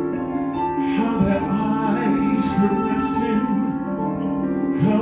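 Live chamber music from cello, violin and keyboard playing a slow passage of held notes, with the cello sliding between pitches.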